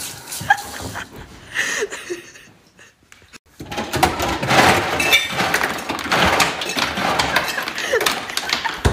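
Dishes knocking at a kitchen sink, then, after a short lull, a long stretch of rummaging in a freezer: cardboard frozen-meal boxes and packages shifted and rustled on the shelves, with many small knocks and clatters.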